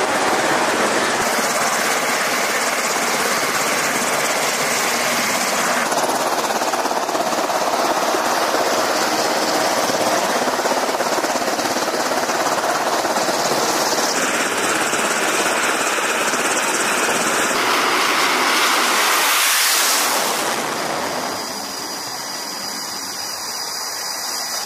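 Jet engines running on an aircraft carrier's flight deck: a loud, steady rushing noise that changes tone abruptly several times and drops in level about 21 seconds in.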